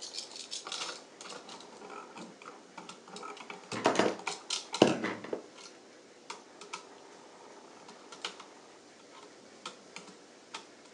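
Small clicks and rattles of a plastic duplex electrical outlet and its copper wires being handled and fitted at the terminal screws. The handling is loudest about four to five seconds in, then thins to sparse light clicks.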